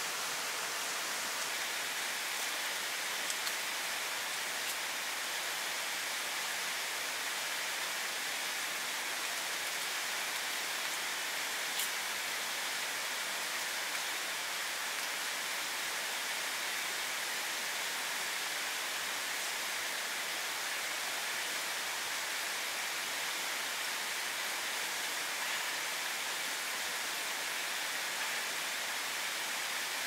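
Steady light rain falling, an even hiss with a few sharper drop ticks here and there.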